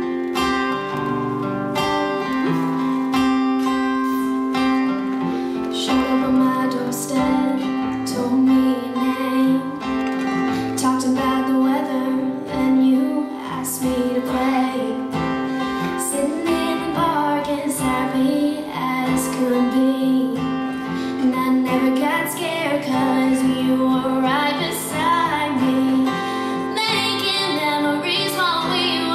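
A woman playing an acoustic guitar solo, with her own singing voice joining about six seconds in and carrying the melody over the guitar from then on.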